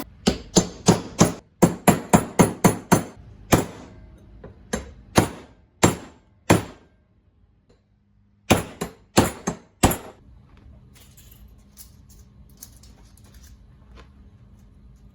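Hammer blows in a quick run of about a dozen strikes, then slower single strikes, a pause, and a few more strikes, after which only a faint background remains.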